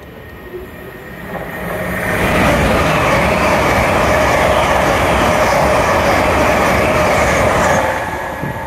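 Great Western Railway Hitachi Intercity Express Train running through the station at speed without stopping: a loud rushing rumble of wheels on rail that builds over the first two seconds, holds steady while the carriages pass, then fades near the end.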